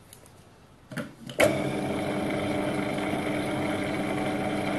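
Small metal lathe switched on about a second and a half in, after a short knock; its motor and gearing then run at a steady speed with an even whine.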